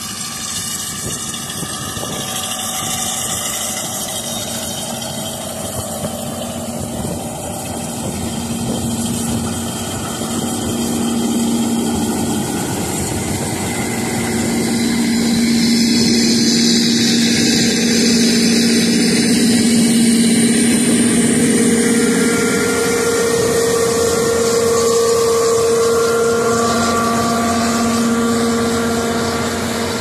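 Combine harvester running while picking up windrowed crop: a steady engine and threshing-machinery drone with a low held hum, growing louder from about halfway through.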